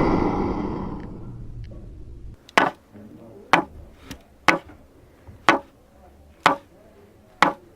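A loud sound effect fades away over the first two seconds. Then sharp, short ticks or knocks repeat evenly, about one a second.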